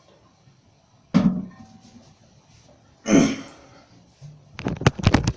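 Knocks and clatter from handling a toilet tank and its parts: a sharp knock about a second in, a short noisy burst about three seconds in, then a quick run of clicks and knocks near the end.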